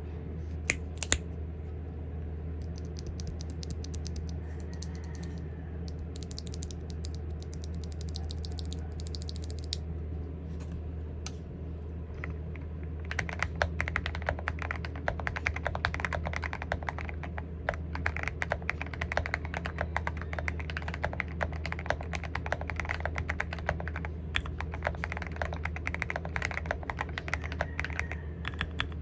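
Typing on a mechanical keyboard with Gateron Ink Black V2 linear switches, a fast run of keystroke clacks. The strokes are lighter at first, then from about halfway through come denser and fuller. A steady low hum runs beneath.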